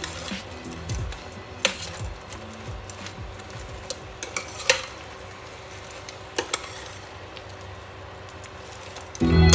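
Fried chicken wings being stirred in sizzling sauce in a stainless steel pan, with a metal utensil clicking against the pan a few times. Music comes in loudly near the end.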